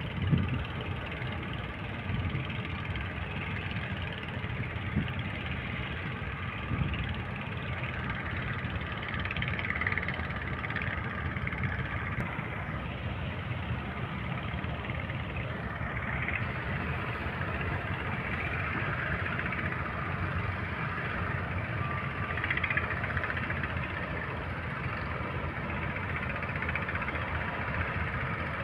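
Boat engine running steadily at sea.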